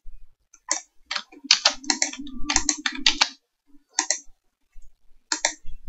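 Computer keyboard typing: irregular keystrokes in small quick runs, with a faint low hum underneath for about a second in the middle.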